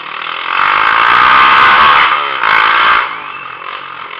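Motorcycle with an open, straight-pipe exhaust revved hard: a long loud rev from about half a second in, a brief drop, then a second short burst that falls back to idle about three seconds in.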